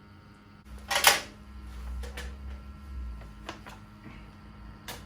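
Gas combi boiler running in service mode on minimum: a steady low hum. Over it comes a brief loud rustle about a second in, then a few light clicks and knocks.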